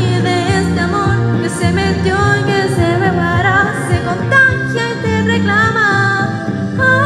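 A solo voice singing a Spanish-language song into a microphone over a karaoke backing track.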